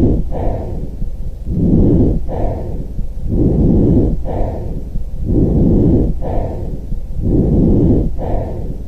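Lung breath sounds heard through a stethoscope: steady in-and-out breathing, about one breath every two seconds, each cycle a short higher-pitched phase followed by a longer, louder, lower one.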